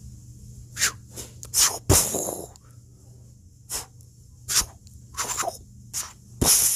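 A run of short hissing, swishing sound effects, about a dozen quick bursts, with a low thump about two seconds in and a longer hiss near the end, over a faint steady low hum.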